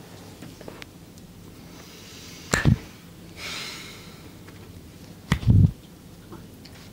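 Massage strikes on a person's body: two sharp hits, each followed by a deep thud, about three seconds apart, with a short breathy hiss between them.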